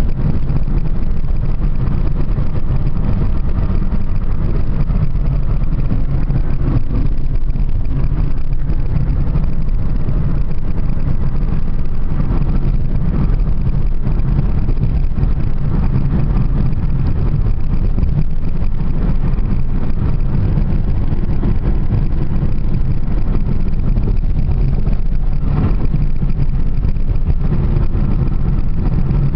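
Steady low rumble of a car driving along an open road, heard from inside the cabin: engine and tyre noise at a constant speed.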